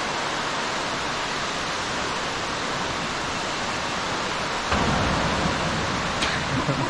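Underground waterfall pouring steadily down a deep cave pit, a constant rushing hiss. About two-thirds of the way in a louder low rumble sets in, and a single sharp click sounds near the end.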